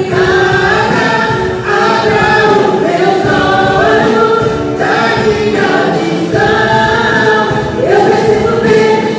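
Christian praise song with a choir singing in sustained, gliding phrases over musical accompaniment.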